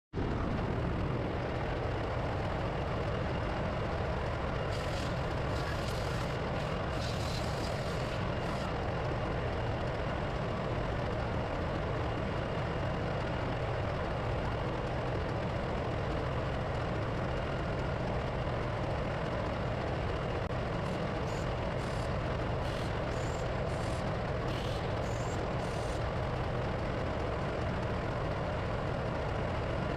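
Steady drone of running diesel machinery in an engine room, with short metallic clinks of hand tools around five to nine seconds in and again past twenty seconds.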